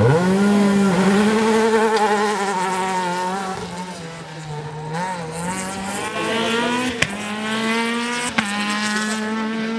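Renault Clio rally car's four-cylinder engine running at high revs, then accelerating hard, its pitch rising in steps with short breaks at the gear changes in the second half.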